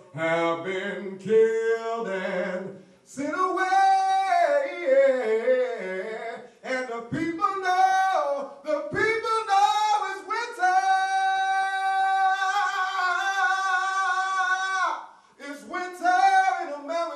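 A man singing unaccompanied into a microphone in a high, gliding line. Phrases are broken by short breaths, and a long high note is held for about four seconds before a brief break near the end.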